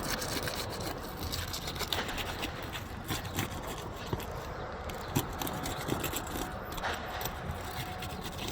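Scraping and rubbing of a tool worked under roof shingles, breaking the seal strips that hold them down, with small scuffs and clicks.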